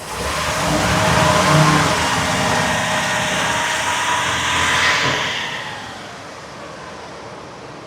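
Ford 6.2-litre gasoline V8 of a 2017 Ford E450 revved up to about 2000 RPM, held there for several seconds, then let fall back to idle about five seconds in. During this rev the engine misfires on cylinder 3, which fails seven times on the misfire monitor.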